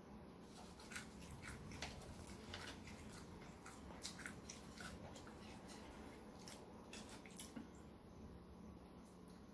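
Faint eating sounds from fried chicken being picked apart by hand and chewed: scattered small clicks and wet smacks, fewer near the end.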